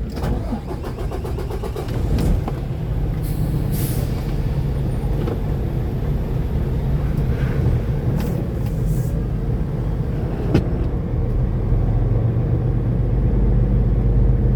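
Semi truck's diesel engine pulling away and gradually getting louder as it gathers speed, with a couple of brief hisses and a sharp click along the way.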